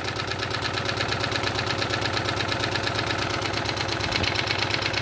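Wilesco D32 live steam engine running under steam at a steady speed, with a fast, even beat from its cylinders and flywheels. It is running smoothly, as it should.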